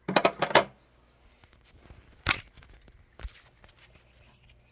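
Handling noise from a hood hinge and plastic drill template being taken apart: a quick clatter of hard parts at the start, a single sharp click about two seconds in, and a soft knock just after.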